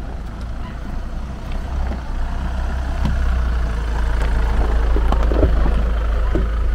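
Hyundai Palisade driving, a steady low road and engine rumble that grows louder as the car picks up speed.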